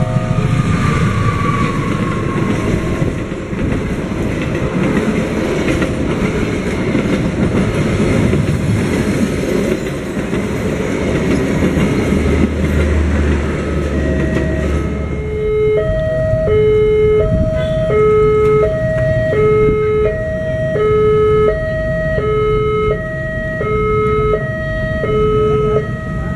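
A diesel-hauled passenger train passes close by, with a loud, dense running noise of locomotive and coaches on the rails that dies away about 15 seconds in. The railway crossing's electronic warning alarm then starts, two tones alternating about once a second, signalling the next train's approach.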